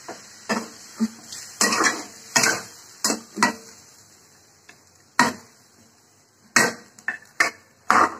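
Metal spatula stirring in a kadai, knocking and scraping against the pan about a dozen times in irregular strokes, with a short pause about halfway through.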